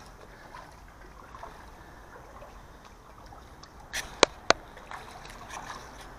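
Hooked creek chub splashing at the surface of a slow creek while being reeled in, a low water sound of splashing and trickling. About four seconds in come two sharp taps a quarter second apart from a finger knocking the camera.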